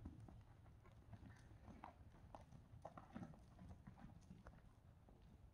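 Faint, soft hoofbeats of a horse moving on deep arena sand, about two muffled thuds a second.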